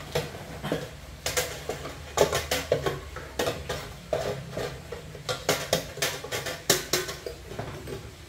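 Metal popcorn-machine pot tipped and shaken over the display cabinet to empty it: irregular clattering knocks and rattles of metal as fresh popcorn pours out, over a steady low hum.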